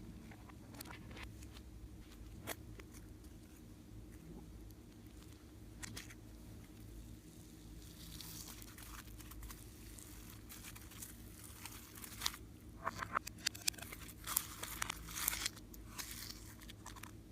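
Slime being squished and stretched by hand, giving sticky crackles and small pops: scattered at first, then a dense run of crackling in the last few seconds.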